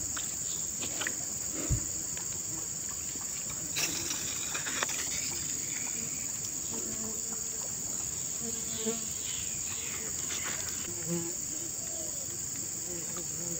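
A steady, high-pitched chorus of insects, with a few short clicks and knocks over it.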